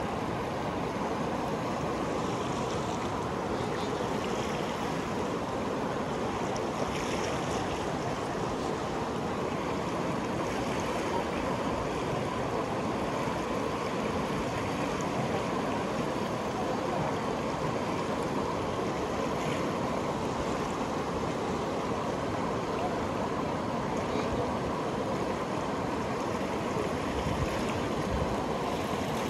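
Fast-flowing Ganges river water rushing and splashing, a steady wash of noise with no breaks.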